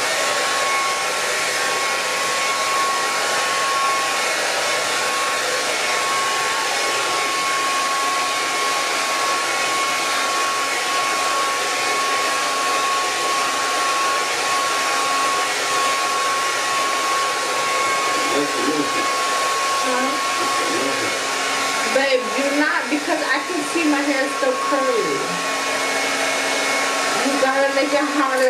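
Handheld blow dryer running steadily, a constant rush of air with a thin high whine on top.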